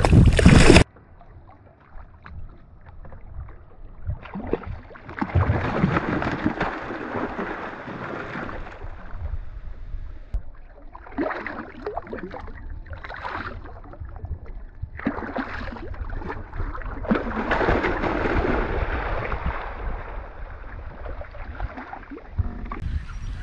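Wind buffeting the microphone, cut off suddenly under a second in; then water sloshing and splashing close to the microphone in irregular bursts, some several seconds long, beside a kayak's hull.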